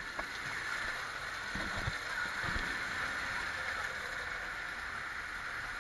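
Water rushing steadily through an enclosed water slide tube as a rider slides down it, with a few dull bumps about two seconds in.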